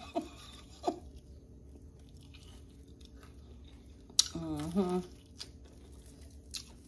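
Biting and chewing a crispy fried pork rib: a few sharp crunches and soft mouth sounds. About four seconds in, a brief hummed "mm" of enjoyment.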